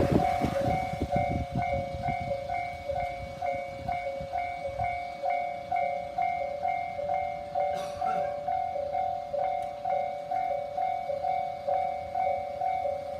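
Japanese level-crossing warning bell ringing, two alternating electronic tones repeating steadily. A train rumbles past at the start and dies away within the first few seconds.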